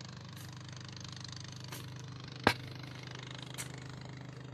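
Pick strikes into hardened volcanic ash: one sharp, loud strike about halfway through and a few fainter ones, over a steady low hum.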